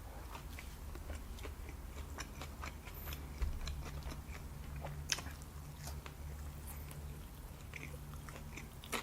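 A person chewing food close to the microphone, with small wet clicks and smacks scattered through, a couple of them sharper, over a steady low hum.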